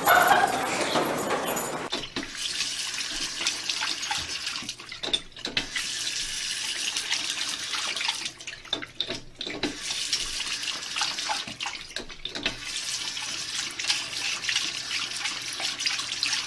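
Running water, a steady hiss with a few brief breaks.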